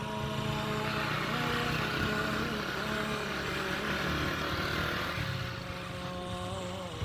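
A vehicle engine running steadily while driving, with road and wind noise; the pitch wavers slowly, and it gets a little quieter in the last couple of seconds.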